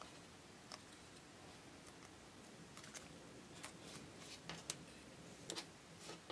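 Faint, irregular clicks and ticks of thin die-cut card being handled by fingers and small paper pieces set down on a cutting mat, against near silence. The sharpest clicks fall about two thirds of the way through.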